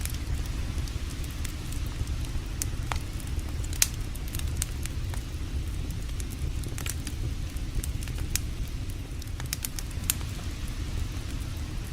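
Campfire crackling, with irregular sharp pops scattered through, over a steady low rushing of creek water.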